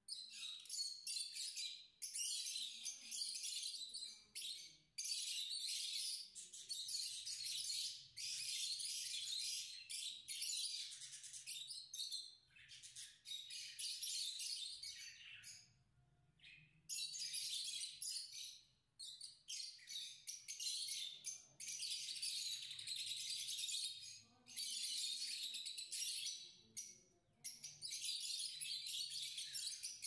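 A flock of caged lovebirds chattering in dense, shrill, high-pitched calls, with a few brief lulls.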